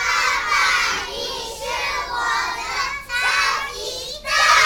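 A group of young children singing together. The singing starts abruptly and runs in short phrases with brief breaks between them.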